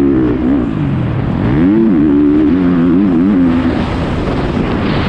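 Motocross bike engine running hard under the rider, the revs dipping then climbing sharply and wavering with the throttle. About three and a half seconds in the engine note falls away, leaving mostly wind rushing over the microphone.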